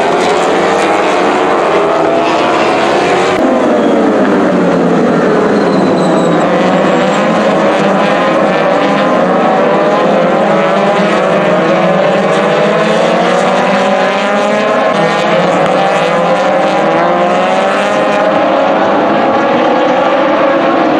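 A pack of MotoGP racing motorcycles with four-cylinder four-stroke engines passing one after another at high revs. Their many overlapping engine notes rise and fall continuously as the bikes shift gears and go by.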